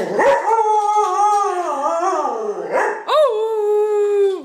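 Dog howling in two long calls. The first wavers and slides down in pitch; the second starts about three seconds in, rises sharply, then holds steady and stops suddenly near the end.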